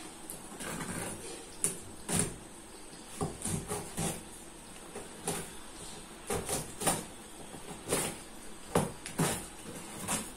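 Cardboard shipping box being cut open with a small knife and handled: a string of irregular short scrapes, rustles and knocks.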